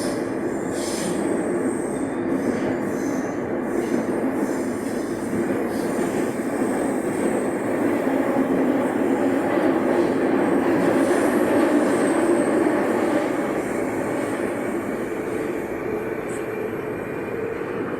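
Santiago Metro Line 4 AS-02 train running between stations, heard from inside the car: a steady running noise of wheels on rail, getting louder a little past the middle and easing off toward the end.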